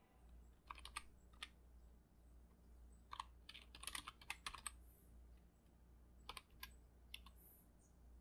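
Faint typing on a computer keyboard: small clusters of keystrokes with pauses between them.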